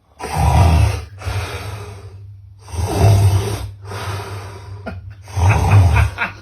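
A man snoring loudly: three long snores about two and a half seconds apart.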